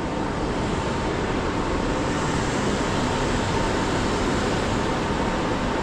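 Loud, steady electrical noise from a room of EV fast chargers: a constant rushing noise with a thin high whine held on one pitch throughout.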